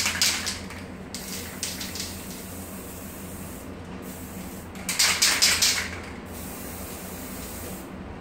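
Aerosol spray-paint can hissing in short, uneven bursts as its blue paint runs out: a short spurt just after a second in, then a stronger spurt of about a second near the middle.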